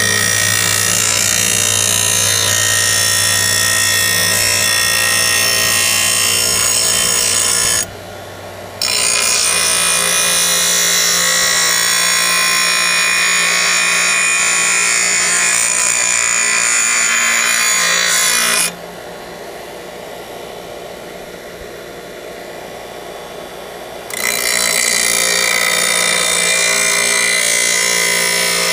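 A 6-inch bench grinder's wheel grinding the cutting edge of a steel lawn mower blade, a loud steady rasp over the hum of the grinder's motor, as the blade is sharpened at an angle. The blade comes off the wheel twice, briefly about eight seconds in and for about five seconds around the twenty-second mark, leaving only the motor running.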